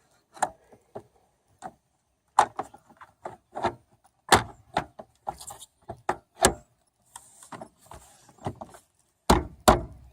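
Irregular clicks, knocks and rattles of a rear spoiler being set down and fitted onto a car's trunk lid, its screws guided into their holes, with two heavier thumps near the end.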